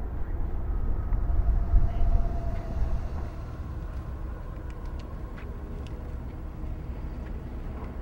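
Outdoor city street background noise: a low rumble, louder for the first three seconds, then a quieter steady noise with a few faint clicks.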